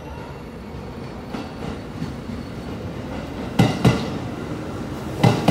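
JR 213-series electric train rolling past along the platform with a rising rumble, its wheels knocking over rail joints twice in quick succession about three and a half seconds in and again near the end.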